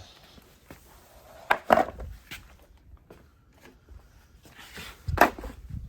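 A few knocks and clatters as loose objects are picked up and set down: one cluster about a second and a half in and another near the end.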